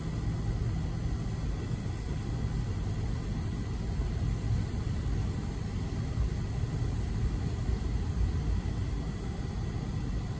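Steady low rumble of a Union Pacific auto-rack freight train rolling through a grade crossing, muffled through a stopped car's cabin.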